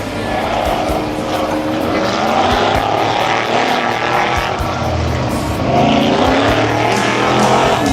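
Class 8 off-road race truck's engine running hard at high revs, its pitch rising and falling with the throttle, with low thumps underneath.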